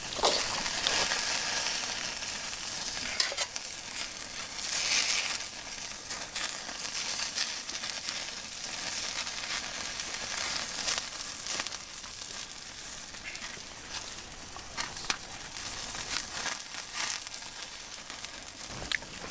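Shirokoro horumon (pork intestine) sizzling on a wire grill over a wood fire. A steady hiss of spitting fat is dotted with quick pops and crackles, and it swells louder about a second in and again about five seconds in.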